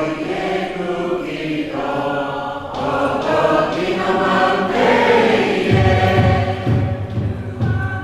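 Polynesian choral singing: a group of voices sings together in sustained lines. About two-thirds of the way through, a low, steady beat comes in under them, roughly twice a second.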